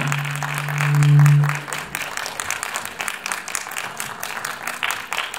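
Audience applauding. A loud low held note sounds over the first second and a half, then stops.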